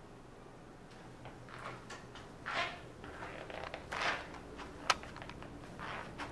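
Faint rustling and shuffling from a person moving through a room with a handheld camera, in several short bursts, with one sharp click about five seconds in.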